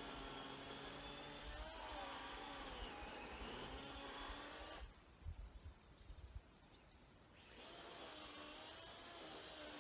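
Makita cordless chainsaw's electric motor running with a whine whose pitch wavers. About halfway through it stops for a couple of seconds, with a few low thuds, then runs again.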